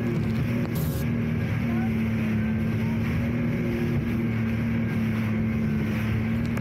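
Jet ski engine running at a steady pitch, with a rush of wind and water noise behind it and a short burst of noise just under a second in.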